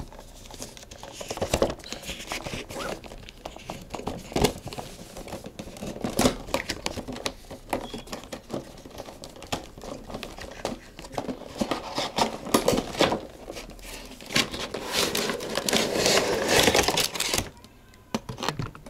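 Hands opening a cardboard toy box: rustling packaging with scattered clicks and knocks, busiest about three-quarters of the way through.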